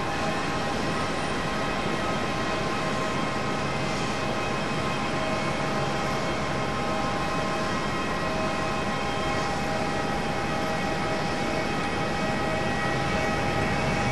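Boeing 767-300ER jet engines running on the runway, a steady whine of several tones over a rushing hiss that holds at an even level.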